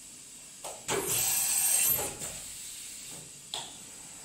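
Doosan DNM 400 II vertical machining center making an automatic tool change: a clunk, then a loud hiss of compressed air for about a second as the tool is released from the spindle, and another clunk with a short hiss about three and a half seconds in.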